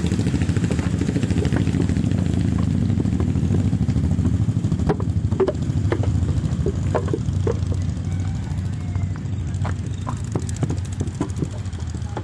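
An engine running steadily nearby, a loud low rumble that eases slightly in the second half, with scattered light knocks and clicks over it.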